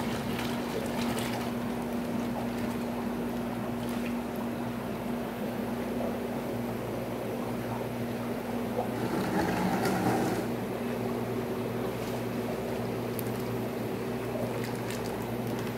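Steady hum of aquarium-store pumps and filters over a wash of running, bubbling tank water, with a louder swell of water noise about nine seconds in.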